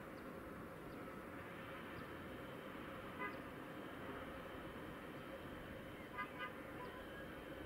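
Short car-horn toots: one about three seconds in and two quick ones just after six seconds, over a steady hum of distant traffic.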